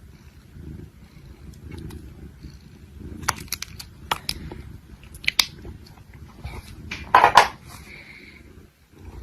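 A cat purring, a low pulsing rumble throughout, with scattered sharp clicks in the middle and a brief louder noise about seven seconds in.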